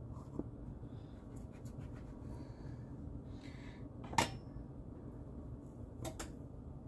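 Quiet handling sounds as cookie dough is worked by hand on a counter: a sharp tap about four seconds in and a pair of lighter taps near the end, over a steady low hum.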